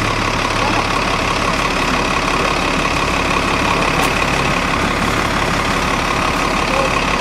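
City transit bus idling: a steady engine drone with a few steady higher tones held over it.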